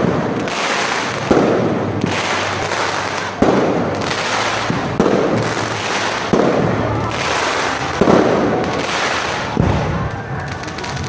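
A fireworks display, with shells bursting in a steady run: seven sharp bangs about one and a half seconds apart, each trailing off before the next.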